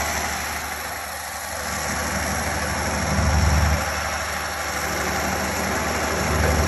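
Old farm tractor engine running steadily, its low note swelling briefly about three seconds in and again near the end.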